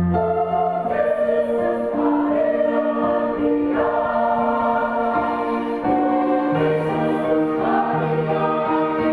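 Church choir singing in harmony, several parts holding long notes that move to new chords every second or two.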